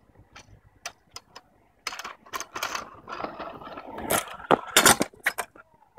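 Stunt scooter rattling and clattering on concrete pavement: a few light clicks, then wheels rolling and the metal deck knocking, with several loud, sharp clacks about four to five seconds in.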